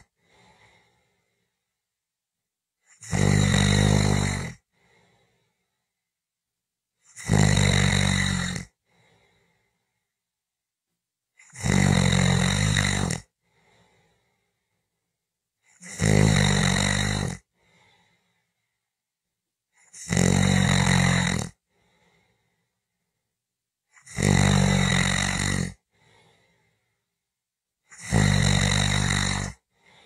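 A person snoring in a steady rhythm: seven loud snores about four seconds apart, each lasting about a second and a half, with a faint short sound after each.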